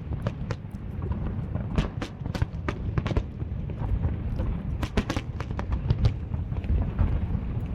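Fireworks display: an irregular string of sharp bangs and crackles, several a second, over a steady low rumble.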